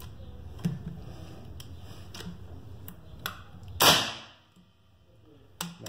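A Fox M22 PCP air rifle converted to .30 (7.62 mm), with a full-length moderator, fires once about four seconds in: a short, muffled report with a rush of air that dies away within about half a second. A few faint clicks come before the shot, and there is one sharp click near the end.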